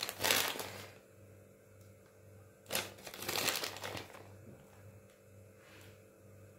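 Small plastic packet of chocolate chips crinkling as it is handled, in two bursts: a short one at the start and a longer one about three seconds in.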